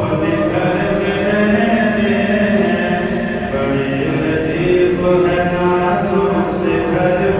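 Unaccompanied male voice chanting an Urdu naat in long, held melodic lines.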